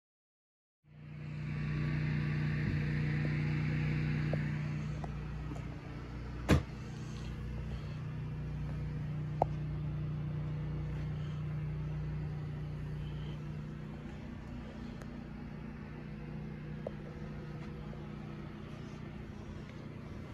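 A steady low mechanical hum, with a hiss over it for the first few seconds and two sharp clicks, a loud one about six seconds in and a smaller one about three seconds later.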